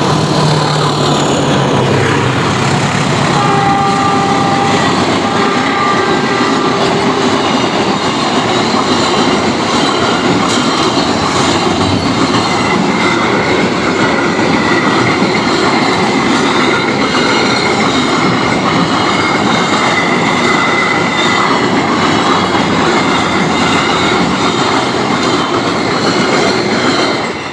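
A diesel-hauled train passing at close range. In the first seconds the locomotive's low hum drops in pitch as it goes by. Then comes a steady loud rumble and clatter of the wagons on the rails, with a thin high wheel squeal through the middle. The sound falls away suddenly at the end.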